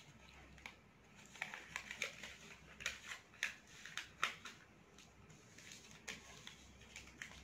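A sheet of paper being folded and creased by hand on a glass-topped table: faint, irregular rustles and crinkles as the folds are pressed down.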